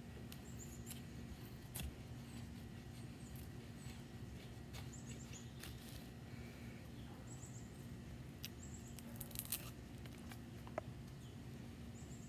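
Bushcraft knife blade shaving curls off a split stick of wood to make a feather stick: faint, irregular scraping strokes, busiest about nine seconds in, with one sharp tick near the end.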